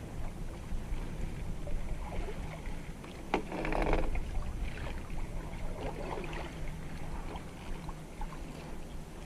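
Kayak paddle strokes splashing and dripping in the water, with a sharp knock about three seconds in followed by the loudest splash. A steady low rumble runs underneath.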